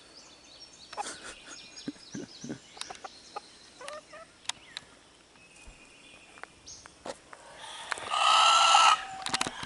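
Chickens clucking, with scattered short calls and clicks, then one loud, harsh call about a second long near the end.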